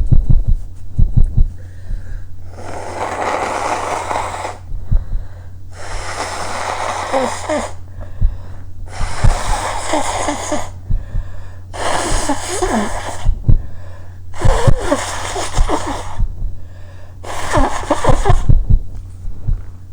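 A person blowing their nose hard into a handkerchief six times in a row, each blow a long noisy blast of one to two seconds. There are a few dull thumps in the first couple of seconds.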